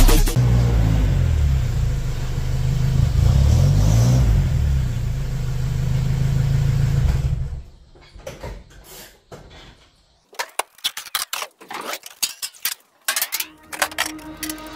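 A motor vehicle engine running, its pitch rising and falling as it is revved, then cutting off about halfway through; after that, scattered clanks and knocks of objects being handled.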